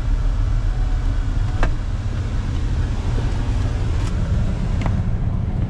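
Chevrolet SSR's 6.0-litre LS2 V8 idling steadily, heard from inside the cabin, with a few light clicks over it.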